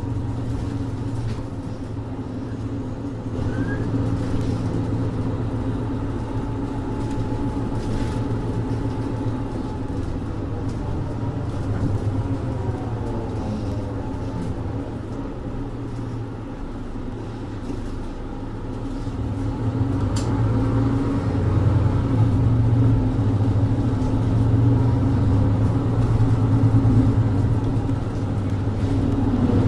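Mercedes-Benz Citaro 2G bus's OM470LA inline-six diesel engine running under way with its ZF EcoLife automatic gearbox, a steady low drone heard from on board. The drone grows louder about two-thirds of the way through.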